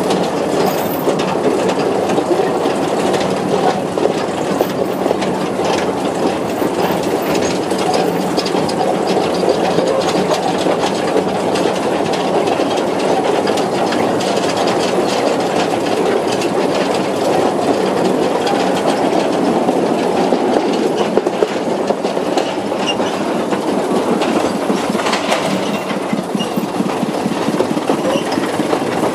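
2 ft gauge narrow gauge train running slowly along the track, heard from on board: a steady rumble of wheels on rail with scattered clicks and knocks.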